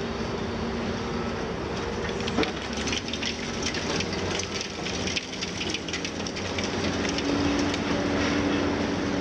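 Liebherr 954 long-front demolition excavator's six-cylinder diesel running steadily while its high-reach tool breaks concrete off the top of a building. From about two seconds in, a crackling rattle of concrete and debris breaking and falling, with one sharper knock, thinning out after about seven seconds.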